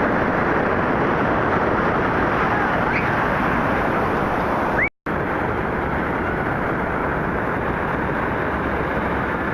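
Steady loud noise of heavy surf breaking, mixed with wind on the microphone; it cuts out for a moment about five seconds in.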